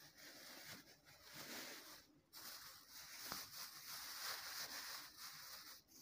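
Large thin plastic bag rustling and crinkling faintly as it is pulled over a towel-wrapped pot, with a short pause about two seconds in.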